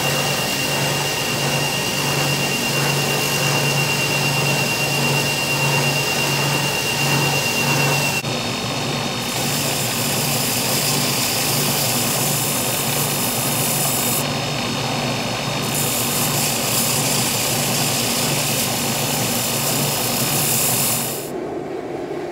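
Belt grinder running while a 1084 steel knife blank is ground against the abrasive belt: a loud, steady grinding hiss over the motor's hum. The sound shifts about eight seconds in and cuts off abruptly near the end.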